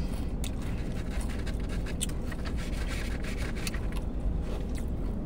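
Steady low rumble of a car running, heard inside its cabin, with faint scattered clicks and scrapes of eating.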